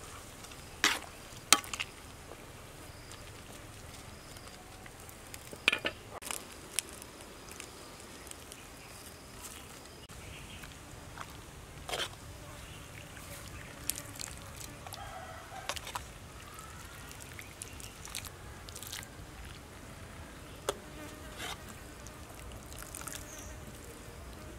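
A metal ladle stirring soup in a metal pot, clinking against the pot in sharp knocks every few seconds, over a faint steady buzz of insects.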